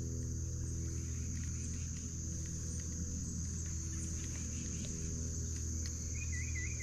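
Insects, crickets, trilling in one steady high-pitched tone over a low steady rumble, with a short warbling bird call near the end.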